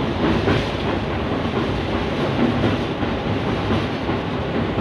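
Passenger express train running steadily over a river bridge: the even noise of the coaches' wheels on the rails, heard from aboard the moving train.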